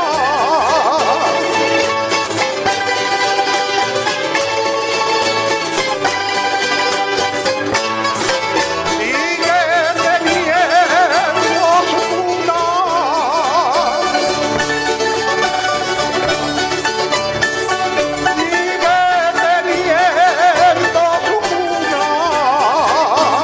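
Background folk-style music with a melody line wavering in strong vibrato over accompanying instruments.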